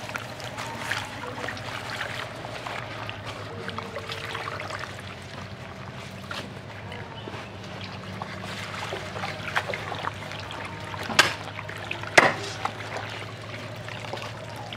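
Hands swishing leaves through water in a plastic basin, with water trickling and splashing as they are washed and lifted out. There is a steady low hum underneath, and two sharp knocks near the end.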